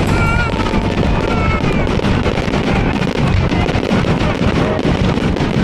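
Fireworks crackling and popping in rapid, dense succession.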